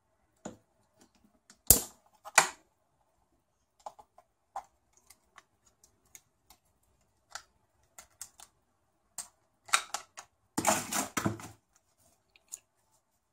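Plastic clicks and snaps as a cheap action camera's clear waterproof housing is unlatched, opened and the camera handled: two sharp snaps about two seconds in, scattered light clicks, and a longer burst of handling noise about eleven seconds in.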